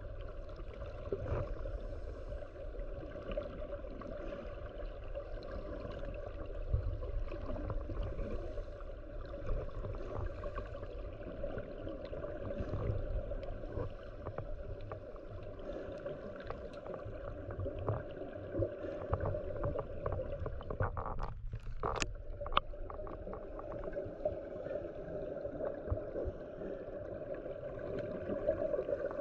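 Muffled underwater ambience recorded beneath the surface among scuba divers: a steady wash of noise full of small clicks and crackles, with low rumbles now and then and a quick run of sharper clicks about three-quarters of the way through.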